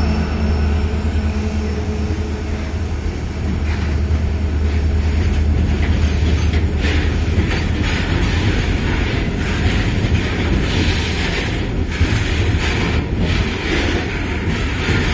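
Twin WDG-4 diesel locomotives of a long tanker train passing slowly, their engines giving a steady deep rumble. From about four seconds in, the wheels start knocking irregularly over rail joints.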